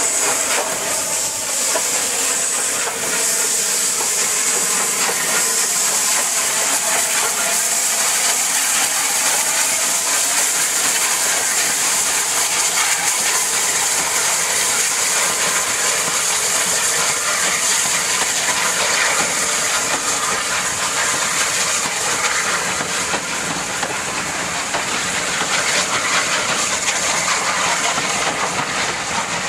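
Steam locomotive Lord Nelson, a Southern Railway 4-6-0, moving its train off with the cylinder drain cocks open, giving a loud, steady hiss of escaping steam.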